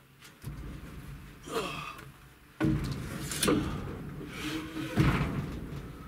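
A man straining and letting out several hard, effortful breaths as he heaves a heavy blue gum slab up onto steel shelf brackets, over low rumbling handling noise that comes in suddenly twice.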